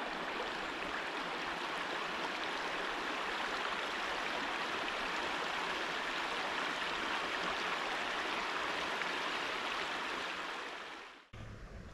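Creek water rushing, a steady even rush that fades down near the end and then cuts off.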